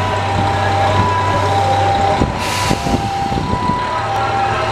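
Kanto Railway KiHa 5000 series diesel railcars running as the train departs, a steady low engine hum with several steady higher tones over it. A short hiss of air sounds about halfway through.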